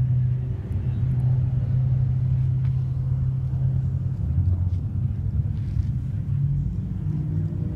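Low, steady engine drone of an unseen motor vehicle; its pitch dips a little about four seconds in and comes back up near the end.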